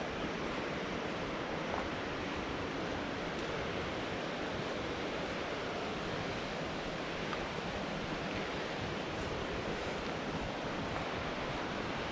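Steady rush of flowing mountain water, an even hiss with no changes in level.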